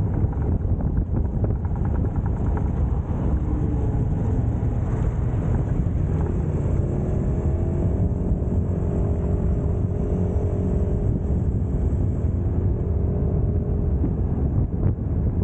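Motorcycle engine running steadily under way, a constant low rumble mixed with wind buffeting the microphone. A fainter, higher engine note joins for a few seconds midway.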